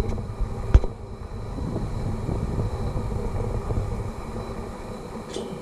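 Wind buffeting an action camera's microphone: a low, uneven rumble, with a single knock about three quarters of a second in.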